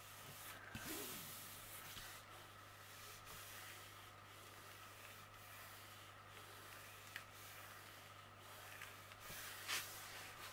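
Faint rustling of hands smoothing and stretching a diamond painting canvas under its plastic-coated cover sheet, with a brief sharper rustle near the end, over a low steady hum.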